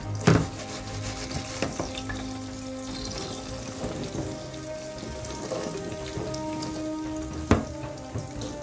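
Egg sizzling slowly in a frying pan, a steady crackling hiss. Two sharp knocks stand out, just after the start and about a second before the end.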